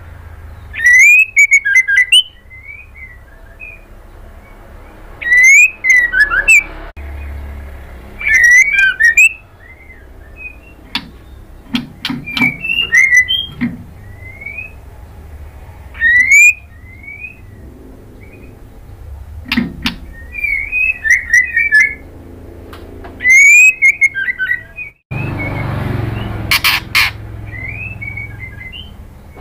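Female white-rumped shama singing loud short bursts of whistled, sliding notes mixed with sharp clicking notes, one phrase every few seconds.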